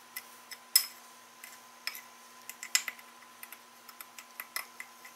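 Metal spoon clinking and scraping against a ceramic bowl in quick, irregular taps while stirring dark brown sugar and dry seasoning rub and breaking up the sugar lumps.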